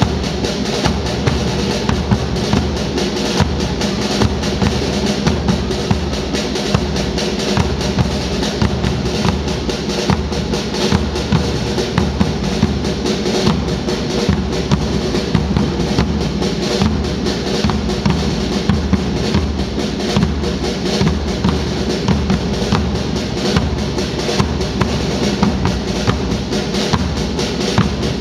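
Marching band playing live: snare and bass drums beat a steady, dense march rhythm with rolls, under pitched instruments sustaining a tune.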